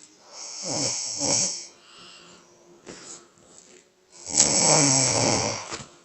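A person snoring: two snores about three and a half seconds apart, the second one longer.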